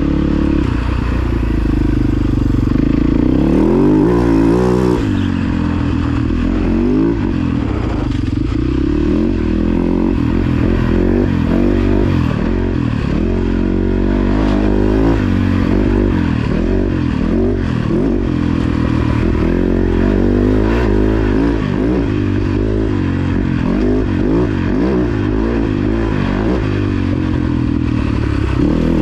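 Husaberg FX450 dirt bike's single-cylinder four-stroke engine under way on a trail ride, its revs rising and falling again and again with the throttle and gear changes.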